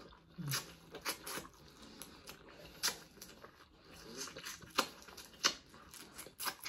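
Dungeness crab being eaten close to the microphone: a string of irregular sharp clicks and crackles from the shell and mouth.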